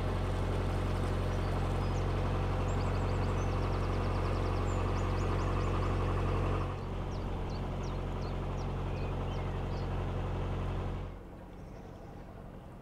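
A narrowboat's engine running steadily with a low hum, dropping somewhat about seven seconds in and falling away about eleven seconds in. Small birds chirp and sing in short repeated phrases above it.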